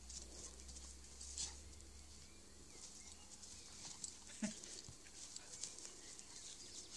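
Australian Shepherd puppy and a black dog play-fighting on grass: faint scuffling and rustling, with a short low growl about four and a half seconds in.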